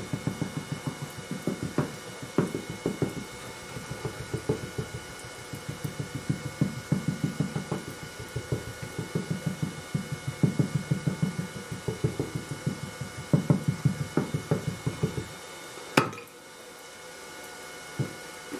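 Green sand being rammed into a wooden casting flask with a wooden rammer: rapid dull thumps, several a second, in bursts with short pauses, stopping about 15 seconds in. A single sharp knock follows a second later, and a lighter knock near the end.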